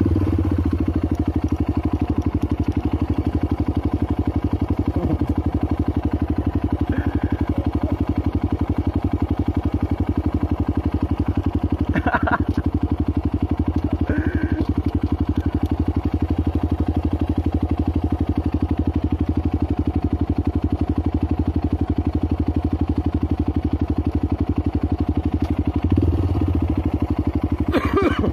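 Honda CRF trail motorcycle engine idling steadily, heard from on the bike. Brief voices come through about halfway and again near the end.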